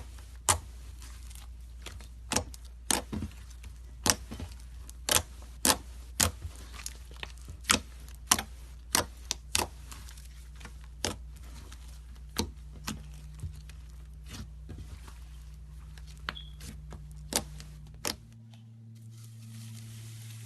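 Slime being squeezed and poked by hand, giving sharp, irregular pops and clicks about one or two a second as air pockets burst. A low hum runs underneath; it changes pitch about two seconds before the end, and the pops stop.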